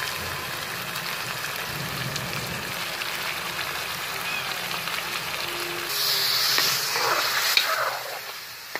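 Chicken pieces sizzling as they fry in ghee and spices (the bhuna stage). About six seconds in the sizzle gets louder and brighter as a metal ladle stirs and scrapes through the pot.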